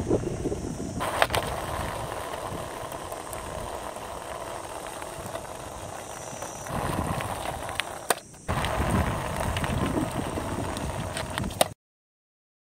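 Wooden scale model car's wooden wheels rolling over rough asphalt, a steady gritty rolling noise with a few sharp clicks. The sound cuts off suddenly near the end.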